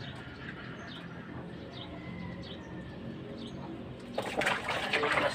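Over faint bird calls, a snakehead fish is plunged and swished in a basin of water by hand, splashing loudly for about a second near the end.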